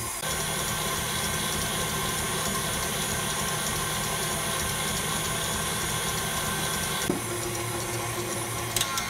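KitchenAid Artisan stand mixer running at medium-high speed, its wire whisk whipping heavy cream: a steady motor whine that changes pitch about seven seconds in. Near the end there are a few sharp clicks as the speed lever is moved to switch it off.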